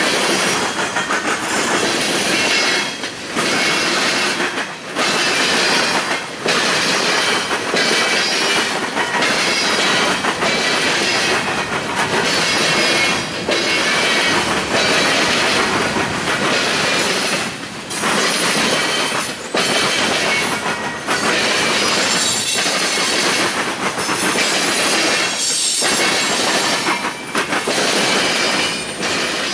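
Freight train of tank cars and covered hopper cars rolling past at close range: a loud, steady rush of wheels on rail with high-pitched wheel squeal, the noise dipping briefly every second or two as the cars go by.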